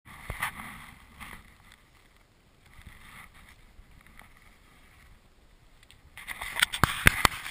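Rustling, scuffing and scattered clicks of gear being handled by hand. A quick run of sharp knocks and clatters comes near the end.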